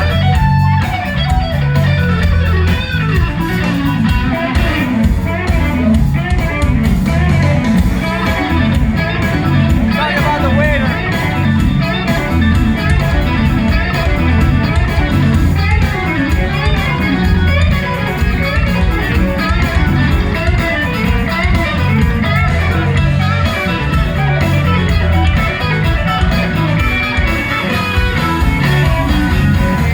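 Live blues band playing an instrumental stretch: electric guitar lead with bending notes over the band's bass and drums.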